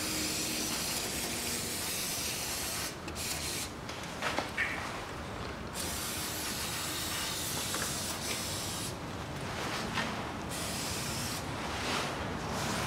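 Aerosol can of carburettor cleaner hissing in several long sprays of a few seconds each, with short pauses between them, as oily residue is washed off the oil filter housing. A few light clicks come about four to five seconds in.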